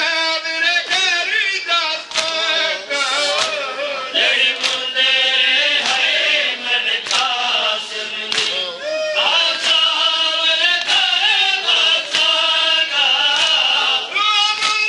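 Male voices chanting a noha, a Shia lament, over a steady beat of sharp slaps: mourners striking their chests in matam.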